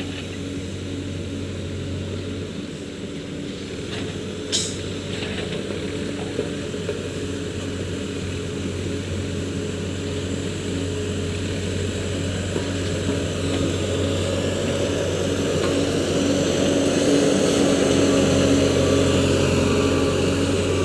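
A road roller's diesel engine running steadily, growing louder toward the end, with one brief sharp click about four and a half seconds in.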